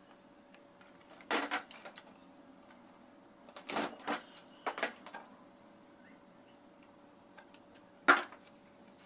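Tools and small parts being put down and handled on a metal tabletop: a few short clusters of knocks and clatters, the sharpest one near the end.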